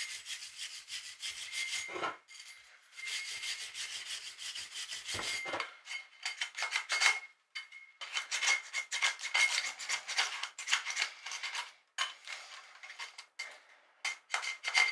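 Quick hand strokes scraping and rubbing the flanged bronze base of a South Coast No. 5 winch, removing old white residue, in short runs broken by brief pauses.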